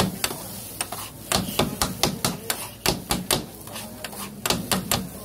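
Metal spatulas chopping chicken on a steel flat-top griddle: quick, irregular clanks of the blades striking the griddle, about three or four a second.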